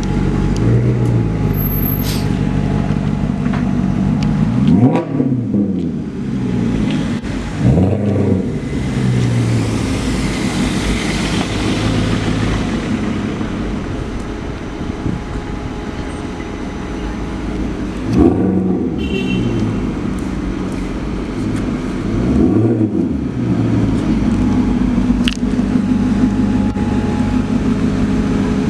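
Maserati Quattroporte GTS V8 engine running, with about four quick revs that sweep up in pitch and drop back between spells of steadier running.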